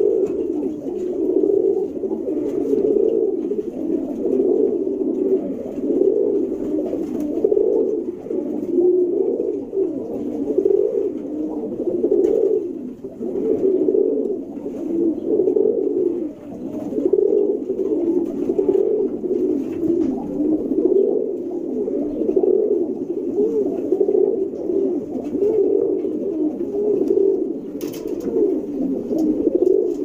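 Domestic pigeons cooing over and over, a low warbling coo that barely pauses.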